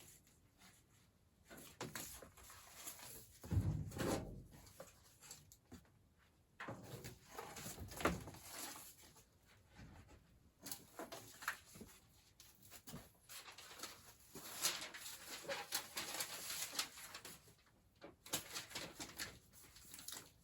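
Irregular clicks, knocks and scrapes of hand tools and metal parts being handled during furnace installation work, with a heavier thump about four seconds in.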